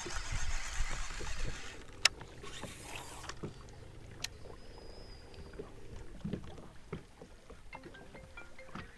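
Water lapping against a small fishing boat's hull with light wind, with a few sharp clicks, the clearest about two seconds in.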